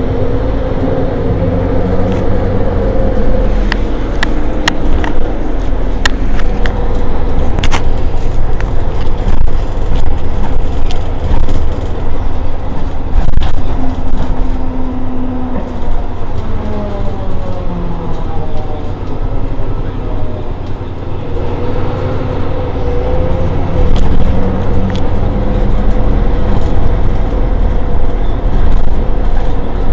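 Mercedes-Benz Citaro G articulated bus standing with its diesel engine idling. A whine in its running glides down in pitch midway and comes back up later, and sharp clicks come now and then, mostly a few seconds in.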